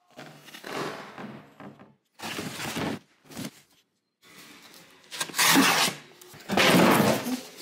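Cardboard packaging being handled and opened: a series of short scraping noises, the two longest and loudest in the last three seconds.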